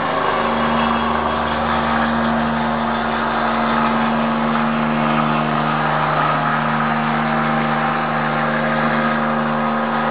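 Helicopter engine and rotor running at a steady, unchanging pitch.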